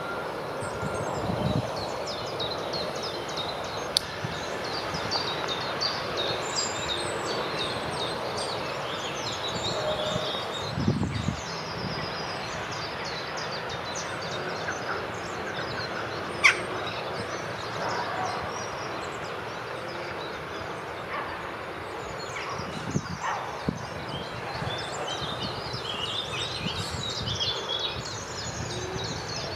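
Small songbirds chirping and singing over a steady outdoor background hiss. A few sharp clicks stand out, the loudest about halfway through.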